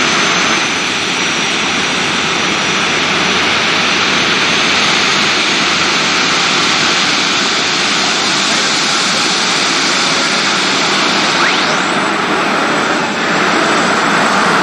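Super modified pulling tractor's engine running loud and steady at the start line, with a rising whine about twelve seconds in as the throttle opens and the tractor begins its pull.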